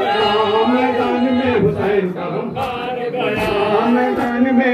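Men's voices chanting a nauha, the Shia mourning lament, with long held notes.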